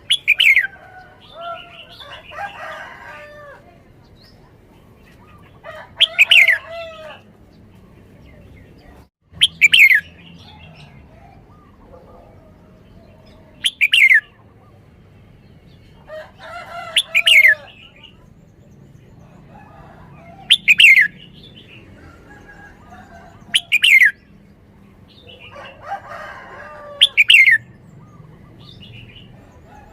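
Red-whiskered bulbul singing: short, loud phrases of quick falling whistled notes repeated every three to four seconds, with softer warbling notes in between.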